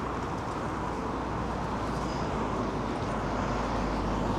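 Steady road traffic noise, a continuous rumble with no distinct events, growing slightly louder near the end.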